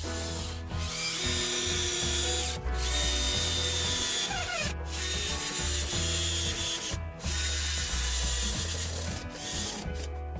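Cordless drill running in about five bursts with short pauses between them, drilling at the holes of a steel mounting plate, over background music.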